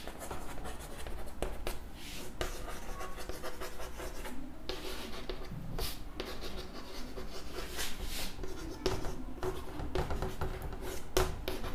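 Chalk writing on a chalkboard: a run of irregular scratching strokes with short pauses between words.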